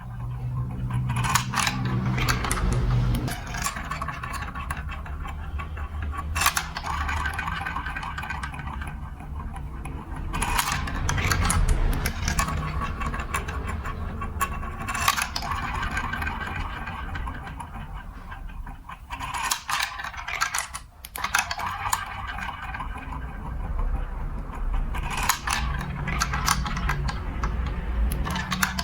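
Marbles rolling and rattling along a building-block marble run, with a steady rumble and repeated sharp clicks as they drop and strike the pieces.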